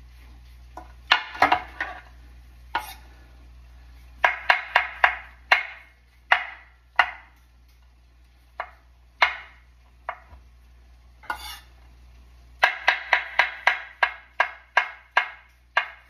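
Knife slicing mushrooms on a wooden cutting board: sharp knocks of the blade striking the board, in quick runs of several cuts with pauses and single cuts between. The longest run, about a dozen cuts, comes near the end.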